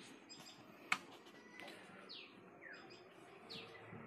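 A bird calling in short, high chirps that fall in pitch, repeated every second or so, with a single sharp click about a second in.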